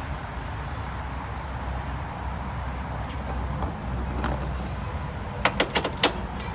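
Steady low rumble in the background, then a quick cluster of about four sharp clicks near the end as parts at the front of the car are handled.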